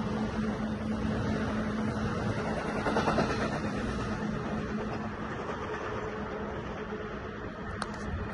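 New Jersey Transit multilevel commuter coaches rolling past, a steady rumble of wheels on rail over a constant low hum. The noise fades gradually as the last car clears.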